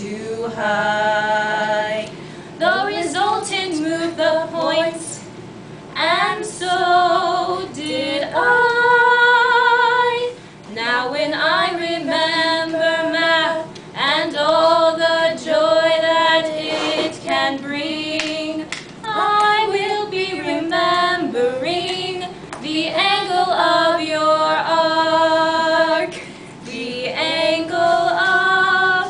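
Two young women singing together without accompaniment, in sung phrases of a few seconds with short breaks between them.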